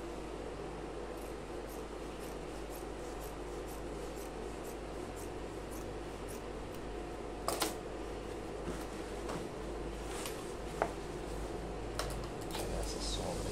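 Large tailor's scissors cutting through trouser fabric, trimming the excess seam allowance left after taking in the legs, with a few sharp blade clicks over a steady background hum.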